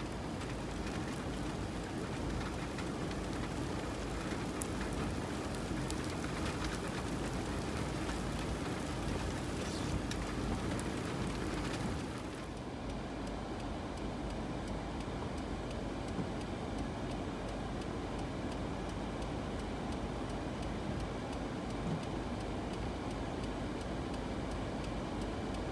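Rain falling on a vehicle: a steady hiss over a low rumble. About twelve seconds in, the higher hiss drops away and the sound turns duller.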